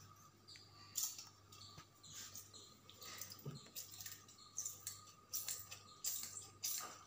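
Faint, scattered taps and rustles of a spoon and a spice packet being handled over a steel mixing bowl as spice powder is added to raw chicken, over a low steady hum.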